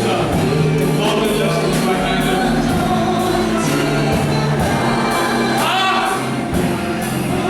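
Church congregation or choir singing a gospel song with live band accompaniment and a steady beat.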